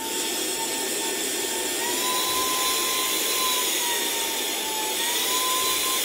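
Fanttik V7 Pocket handheld car vacuum's 40,000 rpm brushless motor running, a steady high whine over a rush of air. Its pitch steps up about two seconds in, sags a little later and rises again near the end.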